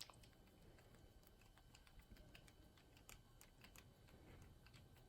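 Faint, scattered light clicks of a small hand tool turning a screw down into an RC truck's transmission gear cover.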